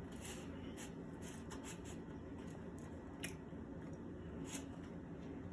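Faint eating sounds while eating sweet potato pie: a few soft, scattered clicks and squishy mouth noises over a low room hum.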